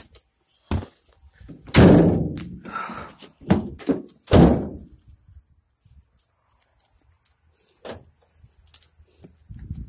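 Heavy thunks and knocks of a hard plastic tool case and a van door being handled: the case set down and the door swung shut. The two loudest thuds come about two seconds in and about four and a half seconds in, with lighter knocks near one and eight seconds.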